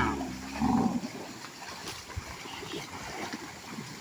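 Cattle mooing: a low moo trails off at the start and a short second call follows just under a second in, then a steady rushing background noise with faint scattered knocks.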